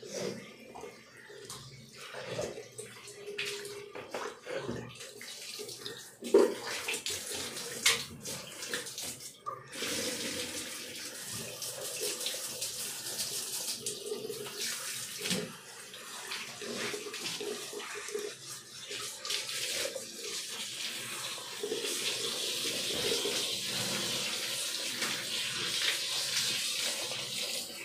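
Handheld shower spraying water, rinsing a wet golden retriever's face and muzzle: a steady hiss of running water that starts about ten seconds in. Before it come scattered knocks and clicks.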